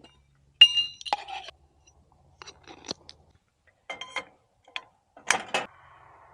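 Camp cookware and utensils being handled: a sharp ringing clink about half a second in, then a run of smaller clinks, taps and scrapes, with two louder knocks a little past five seconds.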